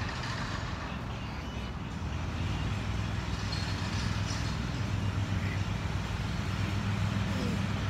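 Steady low rumble of urban background noise, like distant traffic, getting slightly louder about halfway through.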